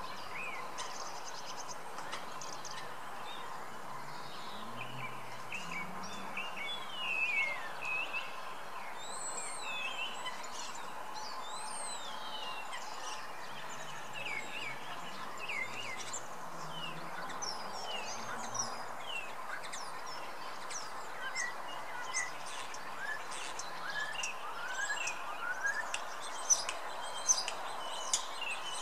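Wild songbirds calling and singing, with many short chirps and whistled glides, over a faint steady hum. A few sharp clicks come near the end.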